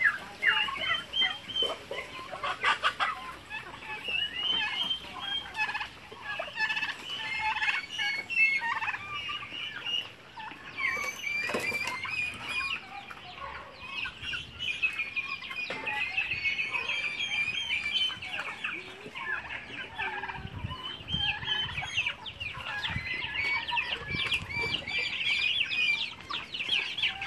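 A flock of chickens and turkeys calling together: continual clucking and chirping calls that overlap throughout.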